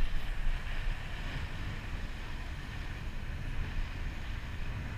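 Wind blowing across the microphone with a low, fluctuating rumble, over the steady wash of ocean surf breaking below.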